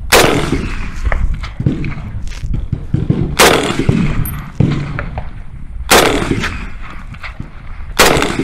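M1 Garand semi-automatic rifle in .30-06 firing four single shots, two to three seconds apart, each a sharp crack with a short ringing tail.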